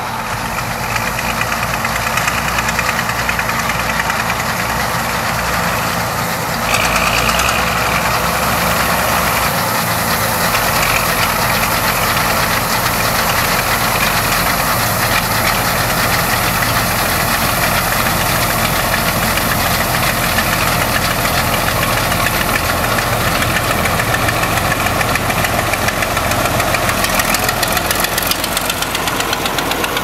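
New Holland 8080 combine harvester and John Deere 4440 tractor running side by side while the combine unloads grain into the tractor's trailer: a steady, loud engine drone, stepping up a little about seven seconds in.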